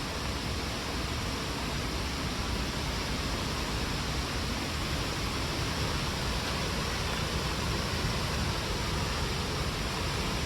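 Steady rushing roar of a large waterfall in full flow, an even noise with no breaks that grows slightly louder over the few seconds.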